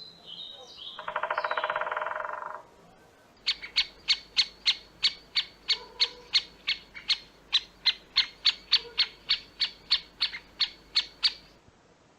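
Bird calling: a few high chirps and a short buzzy trill, then a long, even series of sharp high notes, about three or four a second.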